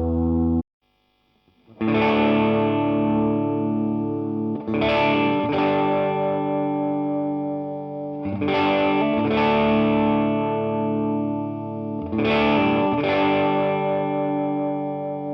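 Electric guitar, a 1973 Greco Les Paul copy, played through a Vox AC30 amp with an overdrive pedal: distorted chords struck and left to ring, mostly two strikes close together about every three and a half seconds. The sound cuts out briefly just under a second in.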